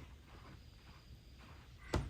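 Faint low room noise, with a single sharp click or tap just before the end.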